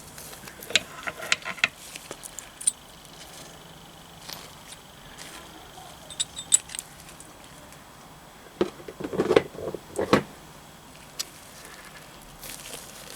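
Small steel gearbox parts clinking and knocking as the gears and selectors of a Triumph Bonneville T140 gearbox are worked off their shafts. There are a few light clinks about a second in and a louder run of knocks about nine to ten seconds in.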